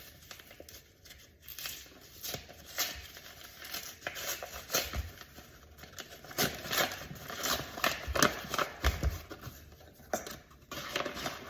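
A bag of flour being opened and handled: irregular crinkling and rustling, with scattered small clicks and knocks, busiest in the second half.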